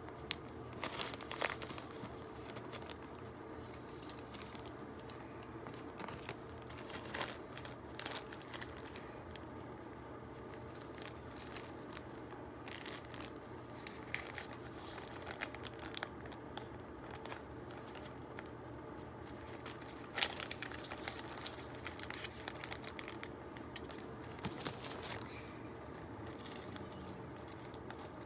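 Clear plastic bag crinkling and crackling in gloved hands: uneven spurts of crackle with a few sharper clicks.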